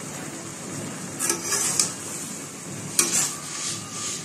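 Spinach sizzling in oil in a metal karai while a flat metal spatula stirs it, with a few sharp scrapes of the spatula against the pan.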